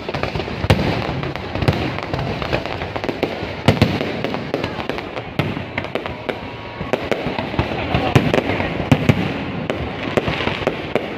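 Fireworks display going off: many sharp bangs at irregular intervals over a continuous din.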